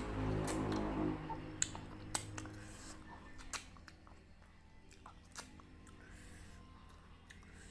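Close-miked mouth chewing of soft, gelatinous beef tendon (kikil), with scattered sharp wet clicks and smacks. A louder low hum with stacked tones fills the first second or so.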